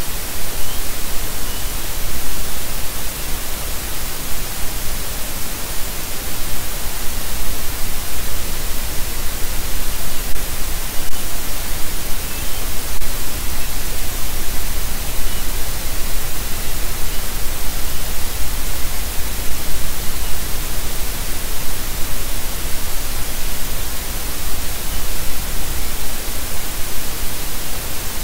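Loud, steady static hiss from the nest camera's audio feed.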